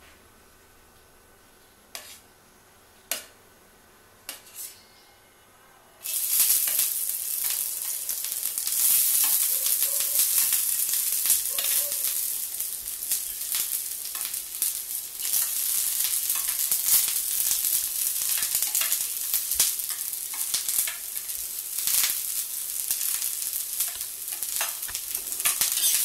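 A few faint clicks, then about six seconds in a sudden burst of sizzling as sliced onion hits hot oil on a tawa. Onion and capsicum keep frying, with a metal spatula scraping and clicking against the pan as they are stirred.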